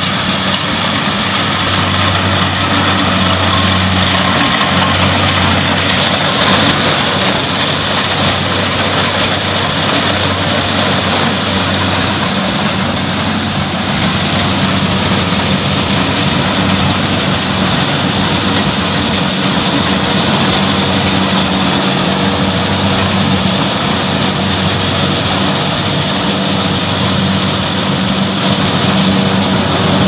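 Kubota DC-70 rice combine harvester running steadily as it cuts and threshes a ripe paddy: a continuous, even engine drone with a low hum.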